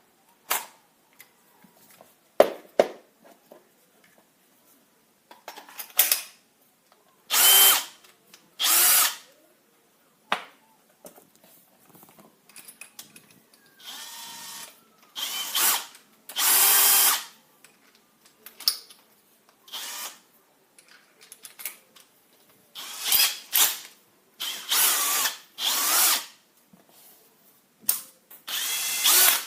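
Bosch Professional GSB 18V-55 cordless 18 V combi drill running in short trigger bursts of about a second, repeated many times with pauses and small clicks between them.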